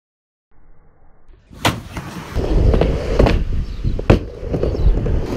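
Skateboard rolling on a mini ramp, its wheels rumbling, with three sharp clacks of the board against the ramp. It comes in about a second and a half in after a silent start.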